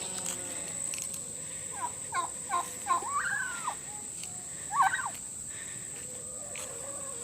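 Turkey gobbling: a quick run of short warbling notes ending in a longer call, then a shorter burst about a second later.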